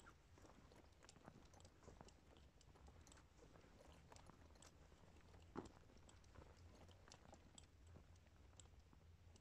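Near silence: faint scattered clicks and crackles over a low steady hum, with one slightly louder knock a little past halfway.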